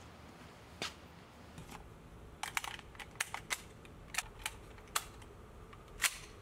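An irregular series of about a dozen sharp, short clicks and taps over a low steady hum, several of them bunched in quick succession about two and a half seconds in.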